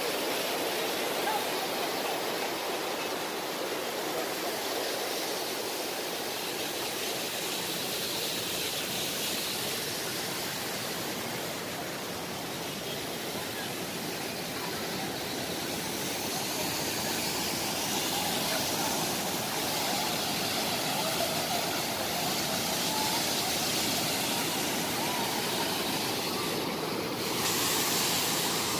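Steady rushing of flowing water from a river and waterfall, a little louder near the end.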